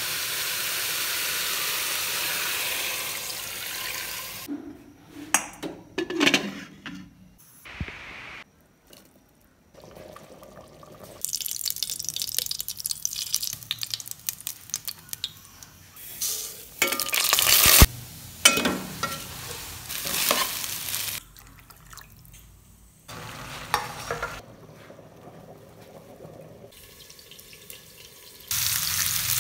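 Home kitchen cooking sounds: food sizzling in a frying pan for the first few seconds, then a string of short cut-together clips of utensils clattering against pots and pans, stirring and water.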